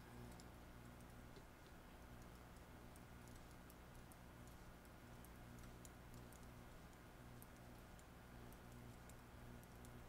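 Near silence with faint, irregular clicks of metal double-pointed knitting needles tapping together as stitches are knit.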